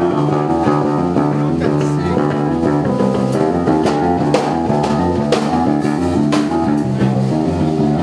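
A rock band playing: electric guitar and bass guitar over a steady drum beat, the bass line stepping from note to note under the chords, with drum and cymbal hits about twice a second.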